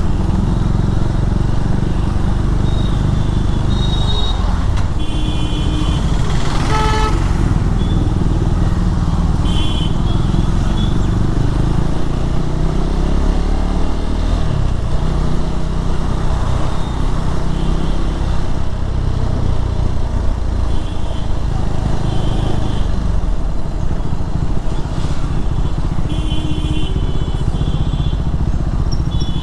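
KTM Duke 390's single-cylinder engine running steadily while riding, with wind and road noise. A few short high beeps cut through now and then.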